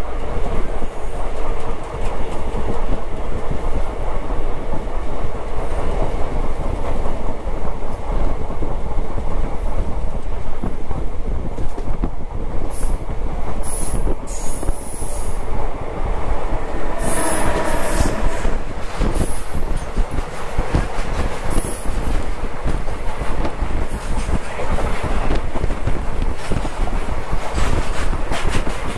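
Passenger express train running at speed, heard from an open coach doorway: steady rumble and clickety-clack of wheels over the rail joints, with wind rush. Around the middle there are high wheel squeals and a brief louder rush. Near the end a goods train runs past on the adjacent track.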